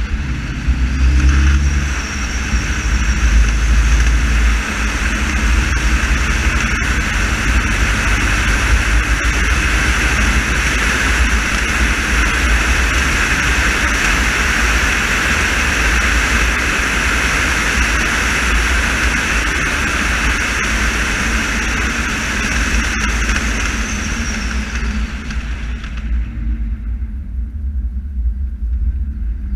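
Car driven at speed, heard from inside the cabin: the engine note steps up with acceleration in the first few seconds, then a steady rumble and road noise from the tyres on the wet tarmac, which fades near the end as the car slows.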